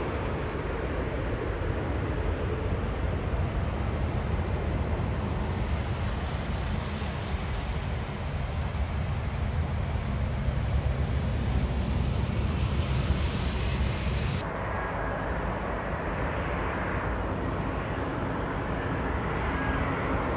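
Jet airliner on landing approach passing close overhead: a loud, steady engine rumble with a hiss that builds toward the middle. About two-thirds of the way through, the sound changes abruptly to a duller rumble.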